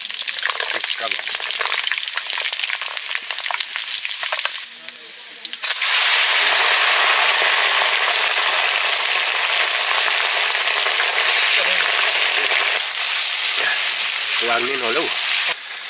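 Hot cooking oil crackling in a wok over a wood fire, then a loud, steady sizzle that starts about six seconds in as chunks of raw buffalo meat are dropped into the oil and fry.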